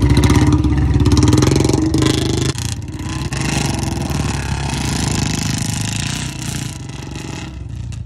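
Two Royal Enfield Bullet motorcycles' single-cylinder engines revving hard as their rear wheels spin in loose dirt. The sound drops suddenly about two and a half seconds in as the bikes pull away, then fades.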